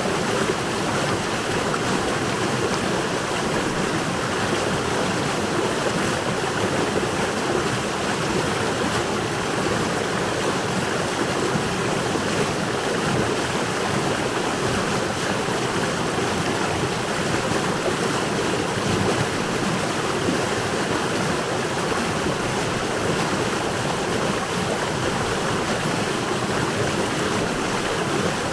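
River water rushing and babbling over rocks in winter, a steady even flow.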